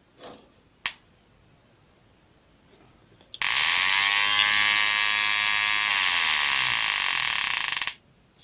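Homemade two-transistor siren circuit sounding through a small loudspeaker. A buzzy tone with many overtones rises in pitch for about two seconds as the button is held and the timing capacitor charges, holds, then falls as the capacitor discharges, and cuts off suddenly. Two clicks come within the first second.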